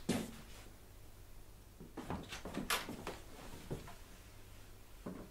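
Cello and bow being handled and settled into playing position: scattered light knocks and rustles, with a sharp knock just after the start and a cluster of knocks about two to three seconds in. No notes are played.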